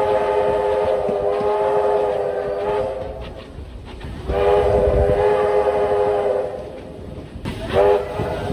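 A New South Wales Railways locomotive sounding a multi-note chime: a long blast that ends about three seconds in, a second long blast of about two seconds, then a short blast near the end, over a low rumble.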